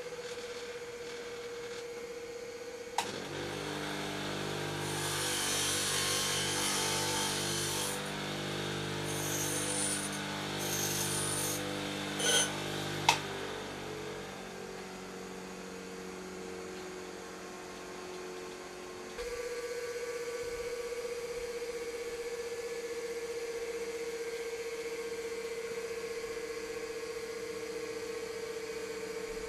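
Bench grinder switched on with a click and running while metal is held to the wheel in two spells of hissing grinding. It is switched off with a click and winds down, its pitch falling over several seconds. A steady tone runs before and after.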